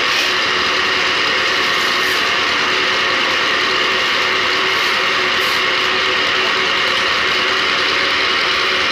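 Engine-driven drum concrete mixer running steadily at a constant pitch.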